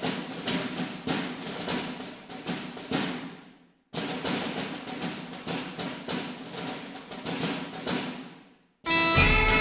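Percussive intro music: a run of drum hits that dies away, a short gap, the same run again dying away, then louder music with held notes starts near the end.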